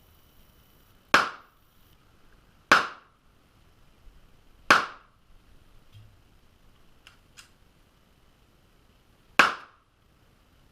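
Four pistol shots, the first three about one and a half to two seconds apart and the fourth after a gap of nearly five seconds, each a sharp crack with a short tail, muffled by a sealed GoPro housing. Two faint clicks come between the third and fourth shots.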